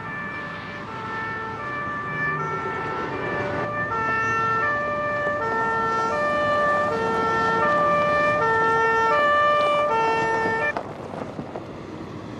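Two-tone emergency vehicle siren of the German Martinshorn kind, alternating evenly between a high and a low pitch and growing louder as it approaches, then cutting off sharply about eleven seconds in. Vehicle noise runs beneath it.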